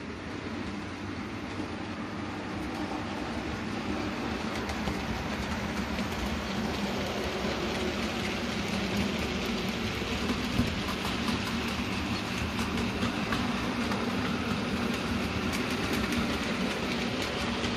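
Model railway goods train running on the layout track: a steady rolling noise of small wagon wheels on the rails, with light clicking over the rail joints and points.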